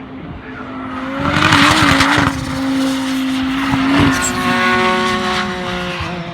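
Race car engine running hard at a circuit, with a loud hiss of noise about a second in. From about four seconds in the engine note climbs steadily as the car accelerates.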